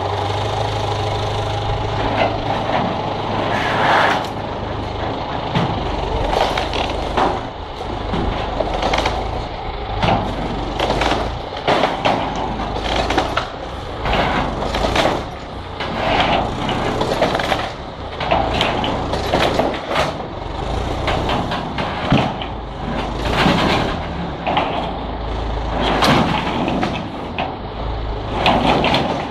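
Tractor engine running, with a steady hum at first and a low rumble later, under a long run of irregular clanks, cracks and scrapes from corrugated iron sheets and timber as the shed's remaining frame is pulled down.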